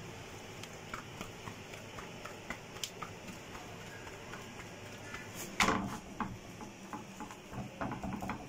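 Hands patting and pressing a stuffed paratha's dough on a stone counter, then laying it onto a griddle: faint scattered soft taps and handling sounds, with one louder knock about two-thirds of the way through and a run of small clicks after it.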